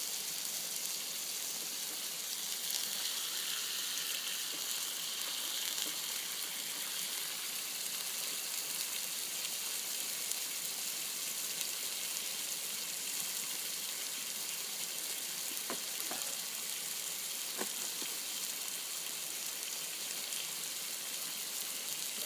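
Meat sizzling steadily in a lot of rendered fat, a continuous high hiss with a few faint ticks of spitting fat about two-thirds of the way through.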